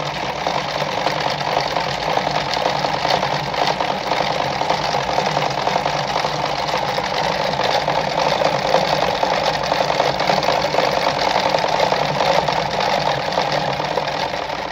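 Mercedes 340FB domestic sewing machine running steadily at speed, stitching a decorative pattern stitch.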